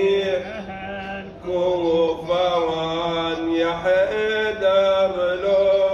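A radood (Shia elegy reciter) chanting a latmiya unaccompanied into a handheld microphone, drawing out long, wavering notes.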